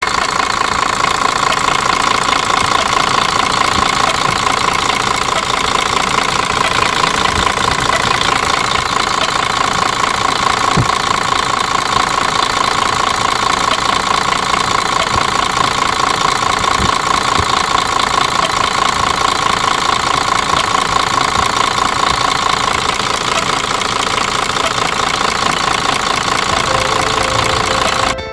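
Mercedes-Benz Axor truck diesel engine running steadily with a persistent knocking from the valve train, the sign of a worn tappet (lifter) and camshaft.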